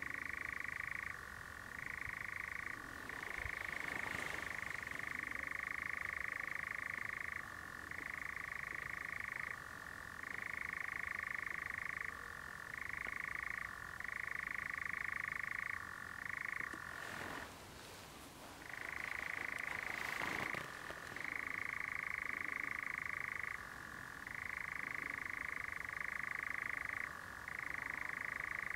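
European nightjar churring: a long, steady, mechanical trill broken by short gaps every second or two, with one longer pause a little past the middle.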